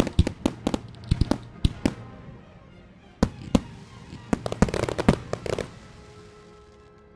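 Fireworks shells bursting in quick volleys, sharp bangs with a dense crackling barrage about five seconds in, then dying away about six seconds in. Music plays underneath.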